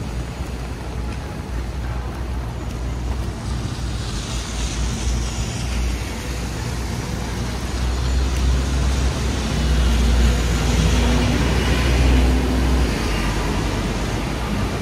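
Traffic on a rain-wet city street: vehicles passing with a steady low engine rumble and tyre hiss, louder in the second half as one goes by.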